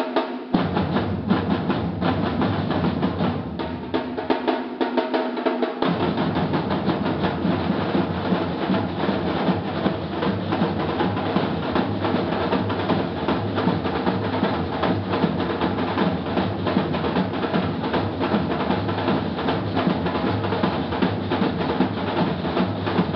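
Batucada samba drum group playing a fast, dense rhythm of snare and repinique strokes over deep surdo bass drums. The bass drums drop out for about two seconds and come back in strongly about six seconds in, then hold the groove.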